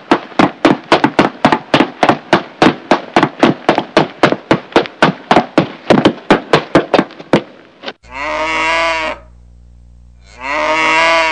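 Cartoon sound effects: a rapid, even series of heavy thumps, about four a second, like a dinosaur's running footsteps, stopping about seven seconds in. Then a cow moos twice near the end, each moo about a second long.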